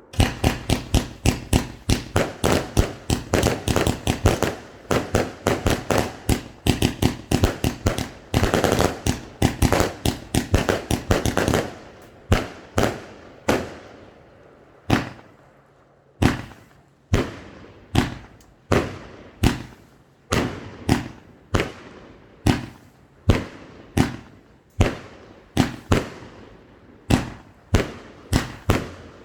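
A Funke fireworks battery (cake) firing its shots. It opens with a dense, rapid volley for about the first twelve seconds, then thins out to single shots roughly one a second.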